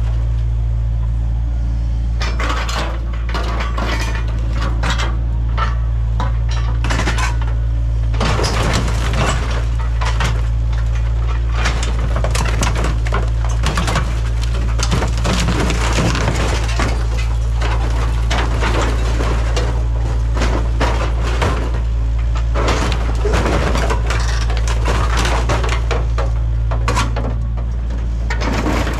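Kubota KX057 mini excavator's diesel engine running steadily while its bucket and thumb tear into a minibus body, with irregular crunching, clattering and breaking of sheet metal, wood and glass.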